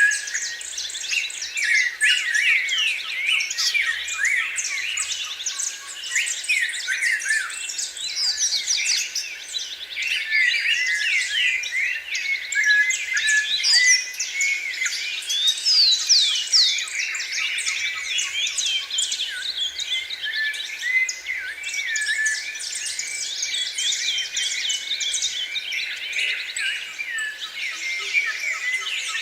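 Many small birds singing at once: a dense, continuous chorus of overlapping chirps and quick trills.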